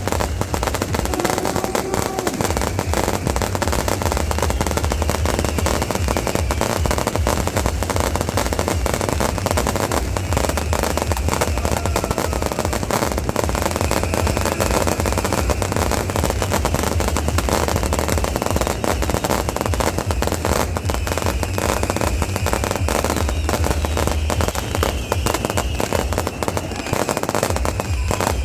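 Firecrackers and fireworks going off in a rapid, unbroken crackle of countless small bangs, keeping up without a pause.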